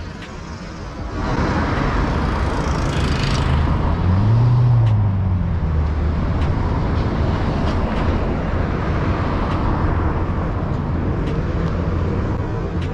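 Traffic on a busy city avenue: buses and cars passing, the noise growing louder about a second in. One heavy vehicle's engine note rises and falls about four seconds in.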